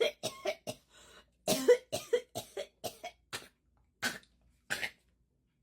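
Coughing fit: a long run of short coughs, coming fast at first and then further apart, stopping about five seconds in.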